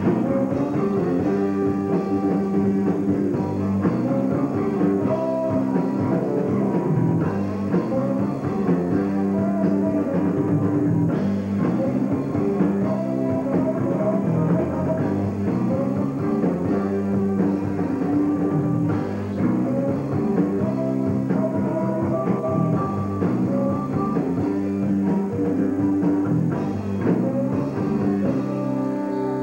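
Live rock band playing: electric guitars over a drum kit, continuous and loud.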